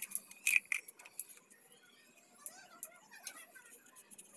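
Cut plastic bottle pieces being handled: light, sharp plastic clicks and crinkles, several in the first second and a few more later.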